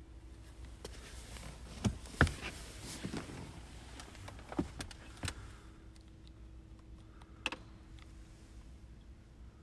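A few sharp knocks and clicks with rustling inside a car cabin, the loudest two about two seconds in and another near the end, over a faint steady hum.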